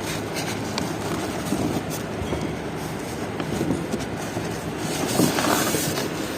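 An engine running steadily, with a few light clicks and knocks over it.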